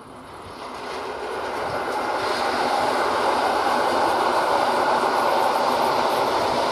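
PKP EN57 electric multiple unit passing on the line, the steady rumble of its wheels on the rails growing louder over the first two seconds and then holding steady.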